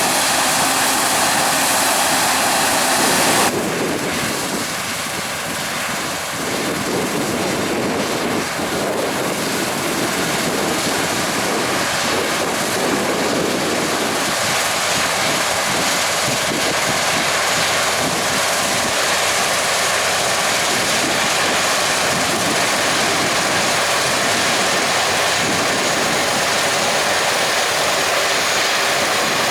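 Heavy harvest machinery running steadily: a loud, even engine and machine noise with no pauses. Its tone changes abruptly about three and a half seconds in, then holds steady again.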